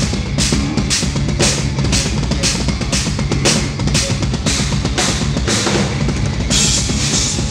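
Instrumental progressive metal played live by guitar and drum kit: eight-string electric guitars fill the low end while the drums hit a little over twice a second, with a cymbal wash near the end.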